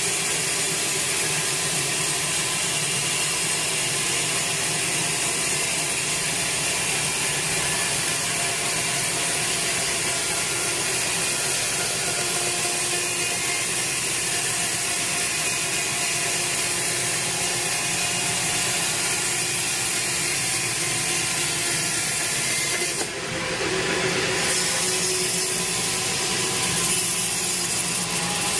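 Sawmill bandsaw running steadily as it cuts lengthwise through a large teak log, with a brief dip and change in the sound near the end.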